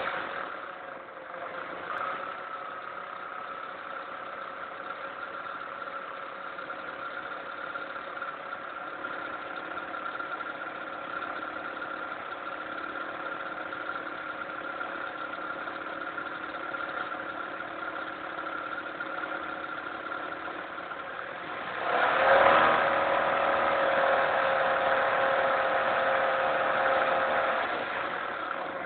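Car engine idling steadily with the ticking noise that is being shown. About two-thirds of the way through it gets noticeably louder for around five seconds, then drops back.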